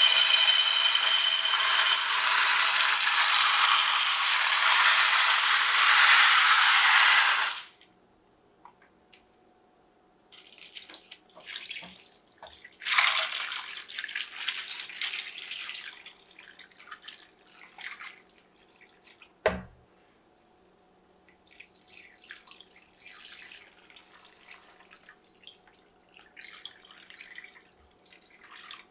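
Dry pasta shells poured from a box into a ceramic baking dish: a loud, continuous clatter for about seven seconds that stops abruptly. Then chicken stock is poured from a measuring jug over the shells, splashing and trickling, with a single knock partway through. Near the end milk is poured in more quietly.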